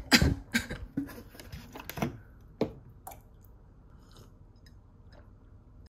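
Ceramic mug picked up off a stone countertop and warm water sipped and swallowed. A handful of short knocks and gulps come in the first three seconds, then it goes quiet.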